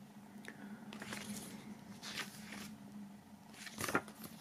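Paper pages of a CD booklet being turned by hand: a few short, soft rustles, the loudest near the end.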